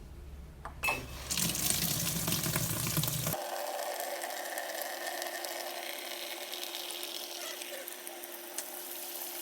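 Water running into the tub of a Midea MFW-701S top-load washing machine as it fills after being restarted, a steady rush of water that starts about a second in, just after a click.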